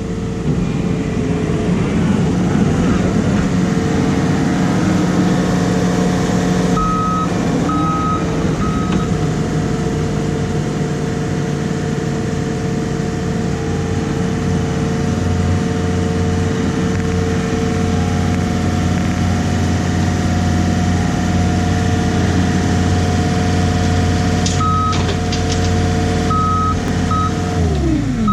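Diesel engine of heavy earthmoving equipment revving up, running at high throttle under load, then throttling back down near the end. A backup alarm beeps in short runs a few seconds in and again near the end.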